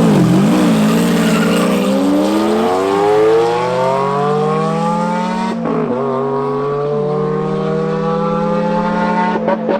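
Car engine accelerating hard, its pitch rising steadily for several seconds. About five and a half seconds in there is a brief break for a gear change, after which the engine holds a steady pitch.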